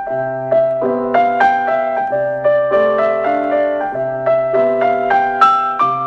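Background piano music: a gentle melody of single struck notes over low bass notes, a new phrase beginning at the start.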